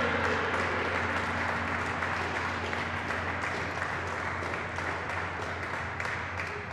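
A small group applauding, the clapping gradually dying down, with the ring of a just-struck gong fading out beneath it in the first second.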